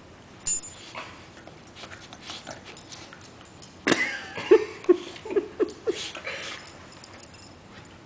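Small dog squirming and rolling on its back on a carpet rug, the rug scuffing under it, with a sharp knock about half a second in. Midway it gives a gliding whimper followed by a run of about five short grunts.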